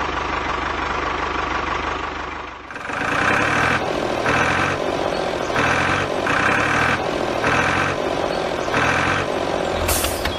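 Tractor engine sound running steadily. About three seconds in it switches to a second engine recording that swells and fades roughly once a second.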